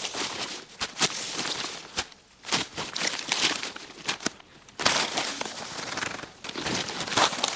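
Paper feed sacks of minerals being handled and torn open, rustling and crackling in irregular bursts.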